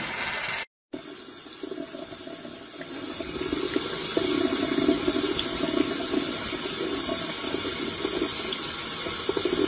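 Tap water running in a thin stream into a mug in a sink, a steady splashing that grows louder about three seconds in.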